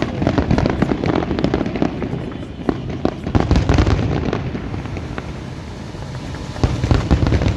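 Aerial fireworks going off in rapid volleys: a dense run of sharp bangs and crackles, thickest about half-way through and again just before the end.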